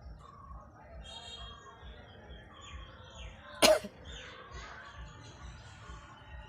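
A person coughs once, short and sharp, about three and a half seconds in; otherwise only faint background sound.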